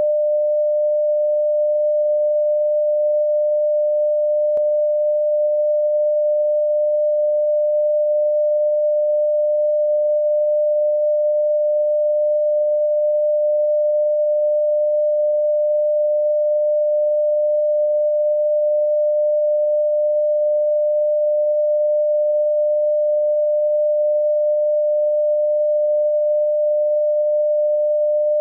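Bars-and-tone line-up test tone: one steady, unbroken beep at a single mid pitch. It is the reference tone for setting audio levels at the head of a broadcast programme tape.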